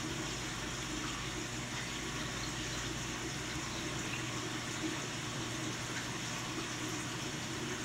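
Steady rush of aquarium filtration: water running back into a large tank and stirring the surface, with a low steady hum underneath.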